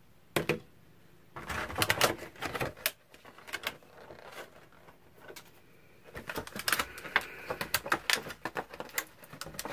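A small white product box and its packaging being handled and opened by hand: a run of light clicks, taps and crinkles, busiest about a second and a half in and again through the last few seconds.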